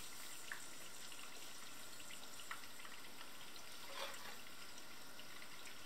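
Oil heating in a pot around cubes of pig's blood, with a faint steady sizzle and a few small crackles.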